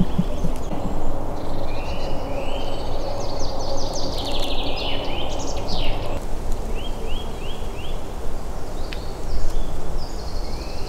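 Songbirds singing in woodland in spring, with repeated short phrases, trills and quick falling notes, over a steady low background noise.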